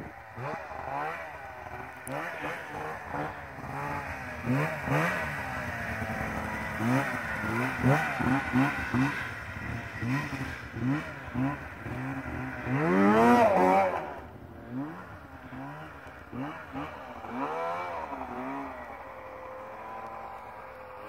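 Snowmobile engine being ridden through snow, revving up and down again and again. Its loudest rev climbs steeply a little past halfway, and the revs that follow are fainter.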